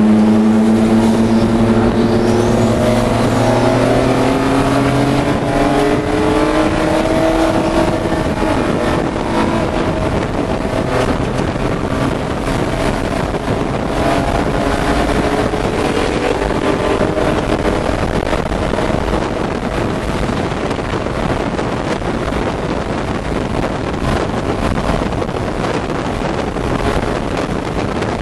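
Inside the cabin of a Pro3 BMW E30 race car, its straight-six engine pulls hard under acceleration, the pitch climbing steadily over the first several seconds. It then runs at high speed with heavy wind and road noise in the cabin.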